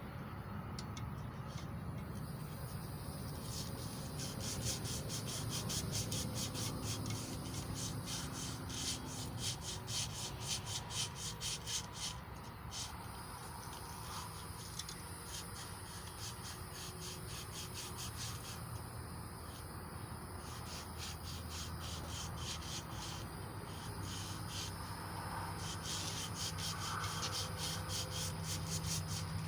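Emery cloth rubbing back and forth around a small-block Chevy 350 crankshaft journal in a long run of quick, scratchy strokes. This is hand polishing of the journal surface to take off light scratches, not grinding.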